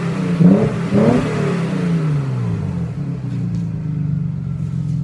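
Audi A6 C5 2.7T's twin-turbo V6 through a Magnaflow exhaust, blipped twice in quick rev spikes near the start, then settling back to a steady idle.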